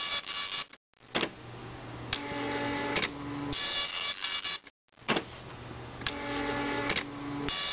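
Panasonic KX-P1090 dot matrix printer printing an image: the print head buzzes along each pass, with sharp clicks between passes. It stops dead twice for a moment, the slow, halting print of a printer waiting on image data coming into its memory.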